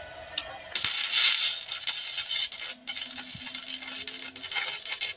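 Arc of a handheld 120-volt stick welder crackling and spitting as the rod burns, starting about a second in and dropping out briefly once. The welder draws close to 2,000 watts from a battery power station's inverter.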